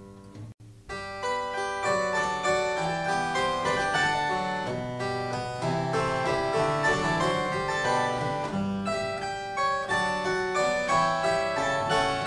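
Background instrumental music: one piece fades out, and after a brief break about half a second in, a new piece with a quick, busy run of notes starts and carries on.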